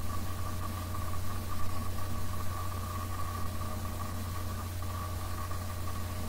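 A steady mechanical hum: a constant low drone with a thin, higher whine over it that breaks off briefly about three-quarters of the way through.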